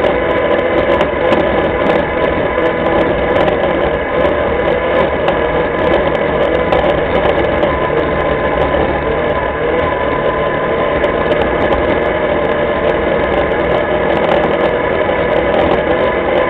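Linhai ATV engine running steadily under way, heard up close from the quad itself, at an even pace with no revving up or down.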